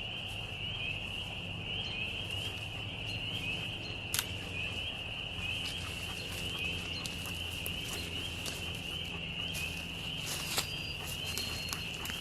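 Dense chorus of frogs: a steady high-pitched peeping of many rapidly repeating short notes that never lets up. A couple of sharp clicks stand out, about four and ten and a half seconds in.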